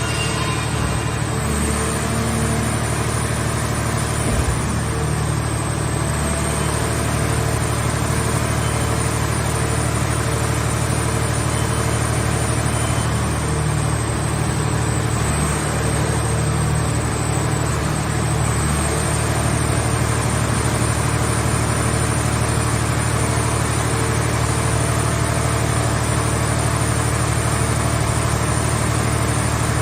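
Scrap car-body baler's power unit running steadily: a low, even engine hum with a thin high whine that wavers slightly in pitch.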